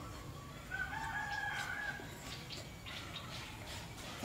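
A single drawn-out bird call, starting just under a second in and lasting about a second and a half.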